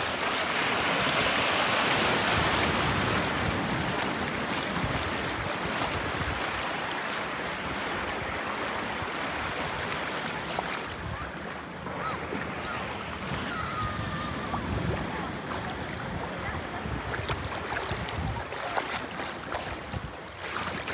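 Small sea waves washing in over sand at the shoreline, a steady wash that is loudest in the first few seconds, with wind buffeting the microphone.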